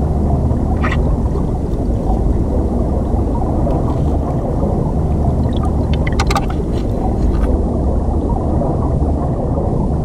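River current heard underwater: a steady, low rushing rumble, with a few short sharp clicks about a second in and again around six seconds.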